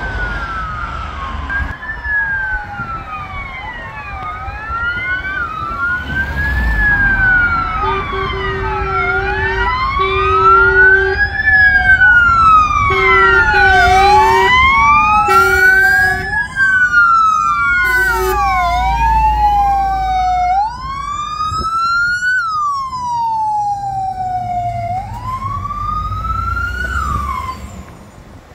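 Wailing sirens of emergency vehicles, an ambulance and then several fire engines, their pitch rising and falling every couple of seconds, with two or more sirens overlapping out of step. Short horn blasts sound several times in the middle, over the rumble of the heavy trucks' engines, and the sirens drop away near the end.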